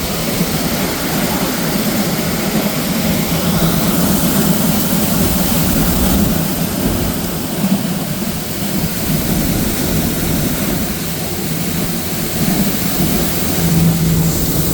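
Forage blower running, blowing chopped earlage up the silo pipe and out of the gooseneck into the silo: a loud, steady rushing noise with a low hum underneath.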